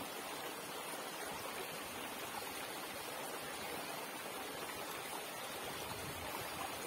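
Shallow rocky creek flowing steadily, an even rush of running water close by.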